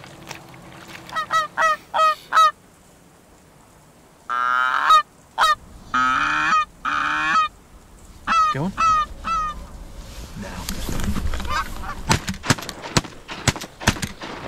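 Canada goose honking: sets of short honks that break upward in pitch, a few longer drawn-out calls, then a quick run of short sharp clucks near the end, as geese are called in over the decoys.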